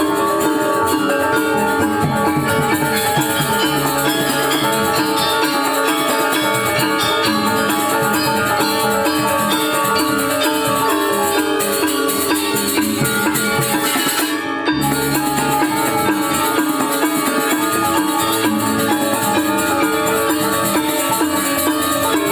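Balinese gamelan gong ensemble playing an instrumental piece: many bronze metallophones ringing together in a dense, continuous texture with drums, briefly dipping about 14 seconds in.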